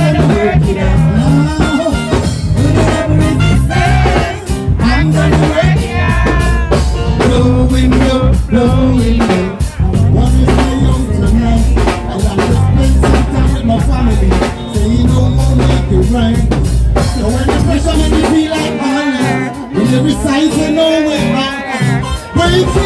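Live reggae band playing, with drum kit and bass guitar carrying a steady beat under the melody. Near the end the bass drops out for a couple of seconds and then comes back in.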